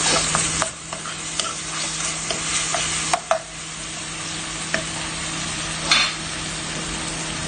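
Chopped tomato, onion, garlic and green chillies sizzling steadily as they fry in oil in a frying pan. A spatula stirs and scrapes through them, with a few sharp clicks against the pan.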